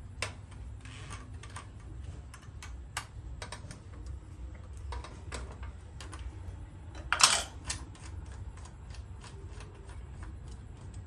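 Light, irregular metallic clicks and taps as the blade guard and arbor fittings of a miter saw are handled to take the blade off, with one louder clatter about seven seconds in.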